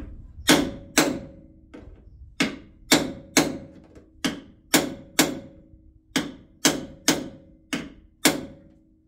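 Hammer striking a metal punch about fifteen times, roughly two blows a second with a short pause about six seconds in, each blow leaving a brief metallic ring. The punch is tapping a part into place.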